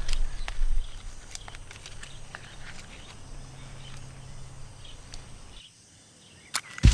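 Quiet woodland ambience with a low rumble and faint scattered clicks of matches being handled. The sound drops away for about a second, then a sudden loud scrape near the end: a match being struck.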